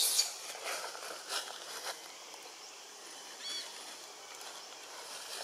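Leaves and twigs rustling and crackling as monkeys climb through a small tree, busiest in the first two seconds. About three and a half seconds in comes one short, high-pitched chirp.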